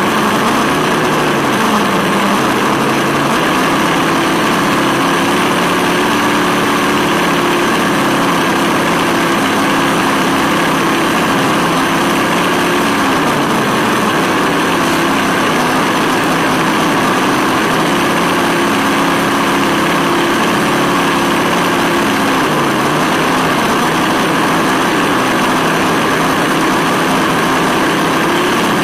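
Sense Hobby ESS-One engine-sound module playing a simulated V8 through the RC buggy's onboard speaker, its pitch rising and falling several times as the throttle changes. Under it runs a steady hiss of the tyres and drivetrain on asphalt.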